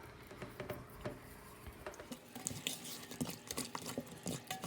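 Seasoning mix shaken onto raw fish strips: light, irregular pattering and small taps that grow busier about halfway through.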